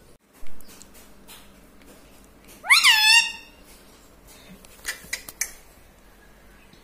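Indian ringneck parrot giving one loud, meow-like call that rises sharply and then falls with a wavering tail, with a few soft clicks and taps around it.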